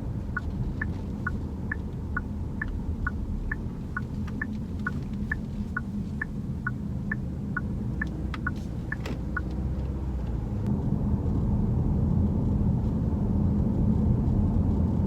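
Inside a moving Genesis GV70: steady road and engine rumble that grows louder after about ten seconds. For the first nine seconds or so there is also a light, even clicking, about two clicks a second, which then stops.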